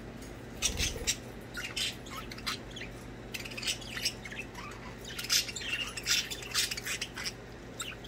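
Several budgerigars chirping: short, high chirps and chatter coming in clusters, some with quick rises and falls in pitch.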